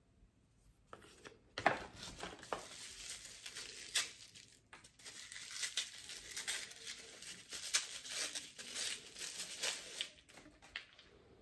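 Thin white wrapping being pulled off a small piece and crumpled by hand, crinkling with many sharp crackles. It starts about a second in and stops shortly before the end.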